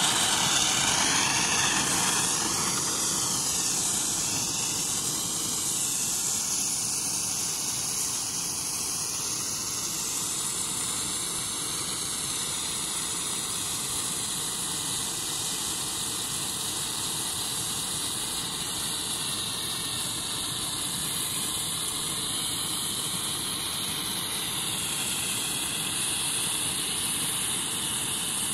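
Mr Light 2 white handheld Bengal flare burning with a steady hiss as it throws out sparks, a little louder in the first couple of seconds.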